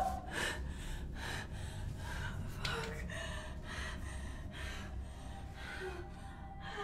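A young woman breathing hard and fast in short panicked gasps, about two a second, over a steady low hum.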